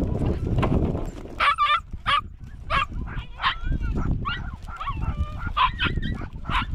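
A dog barking and yelping in a rapid string of short calls, starting about a second and a half in.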